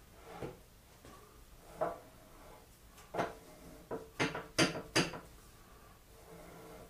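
Hand tools clinking and knocking against metal parts of a K.O. Lee tool and cutter grinder as bolts are tightened down: a few scattered knocks, then a quick run of sharper clinks about four to five seconds in.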